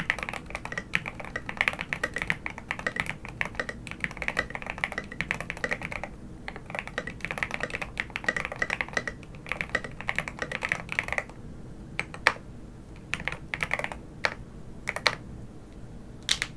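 Mechanical keyboard with stock DLKeys x Zuoce Smoothie switches, a brass plate with plate foam and PGA-profile keycaps being typed on in quick continuous runs. After about 11 seconds the typing thins to slow, separate key presses, a few of them louder.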